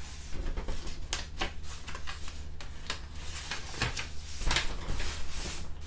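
Paper rustling and crackling in irregular bursts as a printed instruction booklet is handled, opened out and its pages turned.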